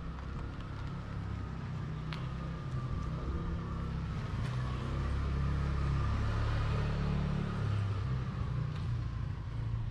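A motor vehicle passing close by: a low engine rumble that grows louder toward the middle and then fades.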